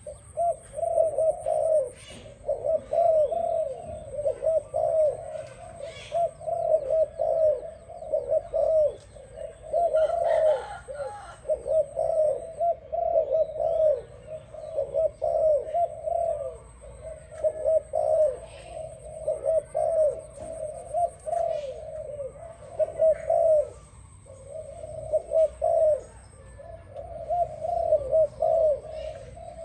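Doves cooing almost without pause: a run of short, soft coos that rise and fall, several to the second, with a couple of brief breaks.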